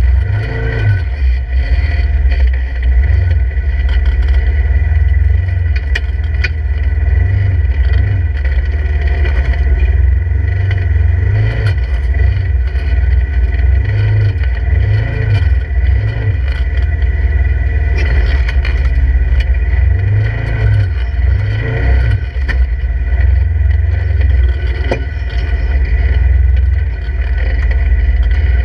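Polaris RZR 1000 side-by-side's engine running at low speed, the rumble swelling and easing with repeated blips of throttle as it crawls over rocks. Occasional knocks and scrapes as the tyres and chassis meet rock.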